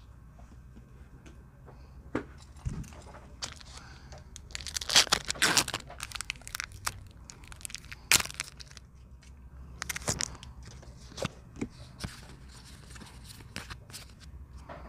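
Foil wrapper of a Pokémon trading card booster pack being torn open and crinkled by hand, in several short tearing bursts, the loudest about five seconds in.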